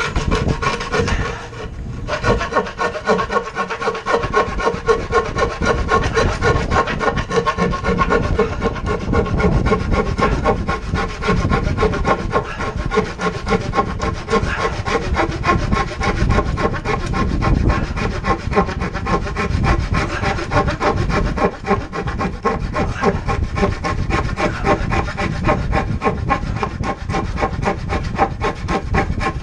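Small handsaw cutting across a softwood board by hand, rasping steadily stroke after stroke, with a short break about a second and a half in.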